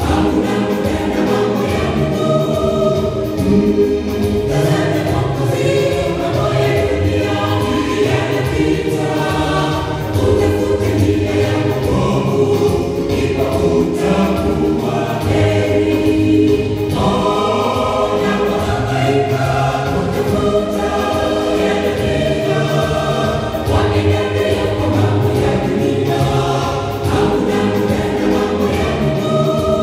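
Mixed choir of men and women singing a gospel song in parts, amplified through microphones and stage loudspeakers, at a steady loud level.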